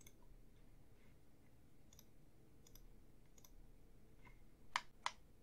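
Computer mouse clicking against faint room hum: a few scattered light clicks, then two louder clicks about a third of a second apart near the end.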